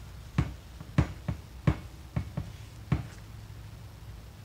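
About seven sharp knocks and clicks over two to three seconds as a steel bracket is handled and set down on a hardboard table.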